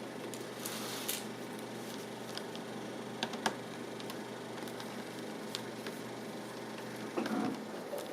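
Small screwdriver working the screws out of a laptop's plastic bottom cover: a few short, sharp clicks and light scrapes of metal on plastic, with a brief rustle of handling near the end, over a steady low hum.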